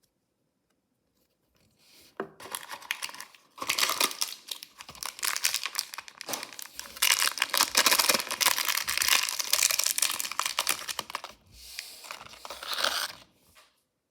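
A mystery-toy wrapper being torn open and crinkled by hand, a dense crackling that starts about two seconds in, is loudest in the middle and stops shortly before the end.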